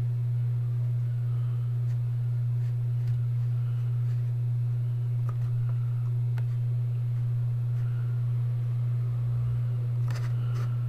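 A steady low electrical hum picked up by the microphone, with a few faint computer-mouse clicks.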